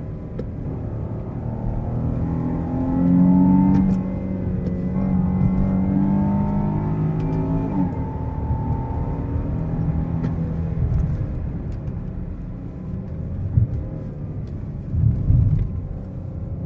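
Chrysler 300's 3.0-litre V6 petrol engine pulling under load while driving, its pitch rising and falling as the revs change through manually selected gears. Two short loud thumps come near the end.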